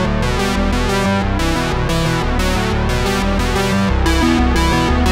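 Background music led by synthesizer and keyboard, with shifting notes over a steady pulse.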